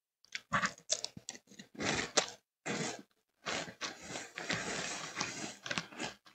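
Close-miked chewing and crunching of a mouthful of Cocoa Pebbles cereal. It comes in irregular bursts with sharp crackles and short pauses, and runs more continuously in the second half.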